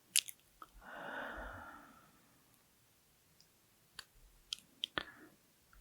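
A slow, heavy breath out, close-miked, about a second in, fading away. Wet mouth clicks come just before it and a few more near the end.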